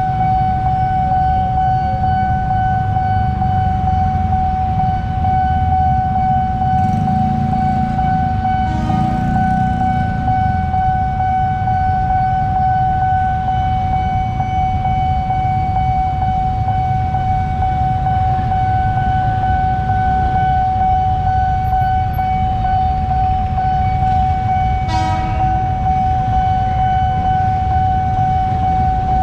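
Railway level-crossing warning siren of the Nippon Signal type sounding one steady high tone, warning of an approaching train, over the low rumble of idling motorcycle engines. A horn sounds briefly about nine seconds in and again near the end.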